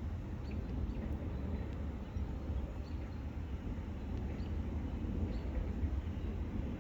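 Wind rumbling on the microphone, with faint, scattered bird chirps.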